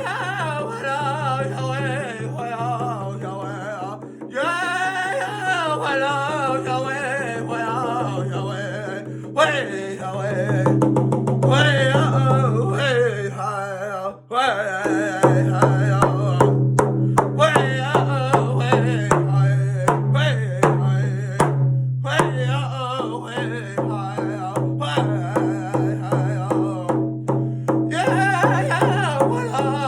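A Native sneak-up song sung solo in a high, wavering voice over a steadily beaten drum. The singing breaks off briefly about halfway through, then the drum and voice carry on.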